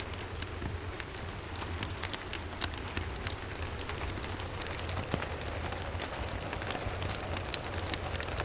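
Steady rain with a fire crackling: a constant patter with frequent small sharp ticks and pops throughout, over a low steady rumble.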